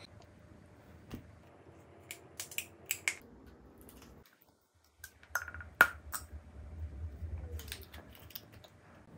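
Close-miked mouth sounds of biting and chewing soft gummy candy: scattered sharp clicks, loudest a little past halfway.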